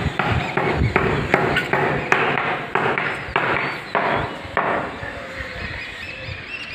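A regular series of hard knocks, about two or three a second, each sharp at the start and trailing off briefly, stopping about five seconds in.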